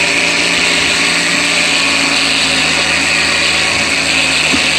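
8500 lb winch on a wrecker boom reeling in its cable under load as it hoists the front of an ATV: a steady motor and gear whine.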